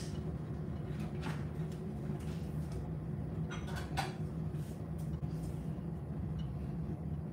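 Steady low mechanical hum of a kitchen appliance, with a few light clicks and knocks of kitchen handling about a second in and again around four seconds.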